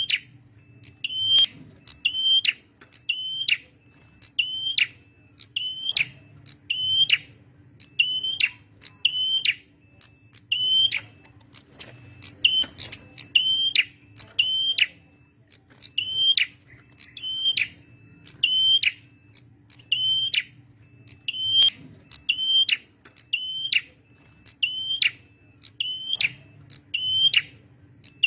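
Male prenjak merah, a small songbird, calling persistently: a sharp, high note repeated about once a second, each with a brief falling tail. A faint steady hum lies underneath.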